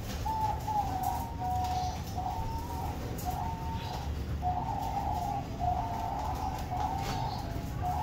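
Several diamond doves cooing, their soft pitched coos following one another and overlapping almost without a break.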